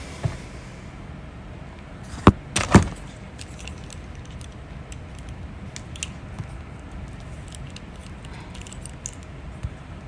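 A person hiccuping: two sharp, sudden hiccups a little over two seconds in, about half a second apart, over a steady hiss with faint scattered clicks.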